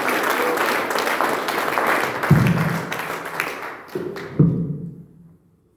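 Congregation clapping and cheering, with a couple of louder low thuds, dying away about five seconds in.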